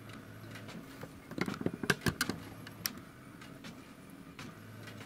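HP DeskJet 2130 inkjet printer printing a page: a steady low motor hum, with a quick run of clicks and clacks from the print mechanism about one and a half to three seconds in.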